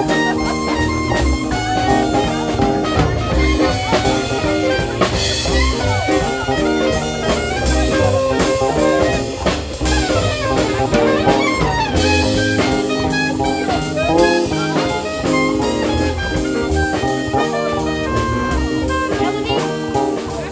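Small live band playing jazz: a saxophone lead over keyboard and drum kit, with a steady drum beat.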